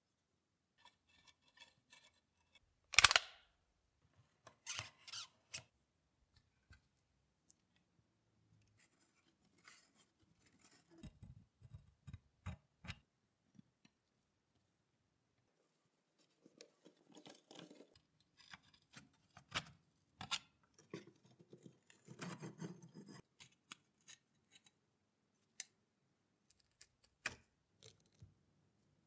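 Rusty cast-iron parts of a mechanical coin bank being handled and picked at: scattered clinks, taps and scrapes, with one sharp loud clank about three seconds in and stretches of scraping later on.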